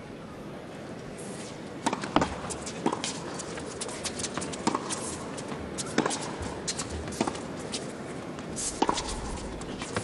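Tennis rally on an indoor hard court. From about two seconds in, a string of sharp racket strikes and ball bounces comes at irregular intervals, with shoe scuffs between them.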